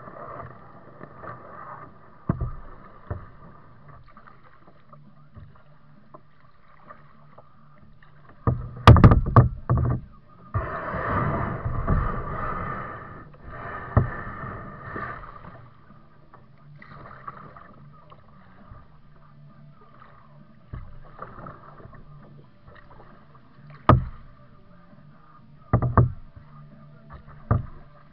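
Kayak paddling: paddle strokes splashing and dripping in calm river water, with a longer stretch of splashing a third of the way in. A few sharp knocks stand out, around 9 s and three times near the end.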